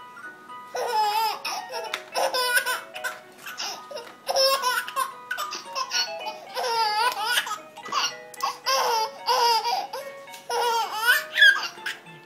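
A baby laughing in about six bursts of belly laughs separated by short pauses, with a simple electronic tune from a musical toy playing underneath.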